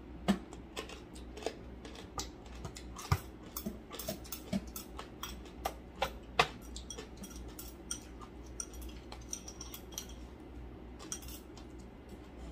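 Eating at the table: chopsticks clicking against ceramic bowls and dishes, with chewing and mouth sounds, in irregular short clicks.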